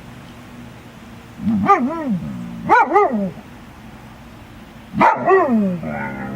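A dog giving three drawn-out barking calls, each rising then falling in pitch, the last trailing off into a longer, lower falling grumble.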